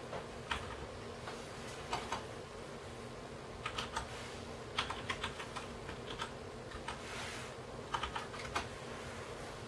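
Light clicks coming in irregular clusters of a few taps at a time, like keys being pressed, over a steady hiss and faint hum.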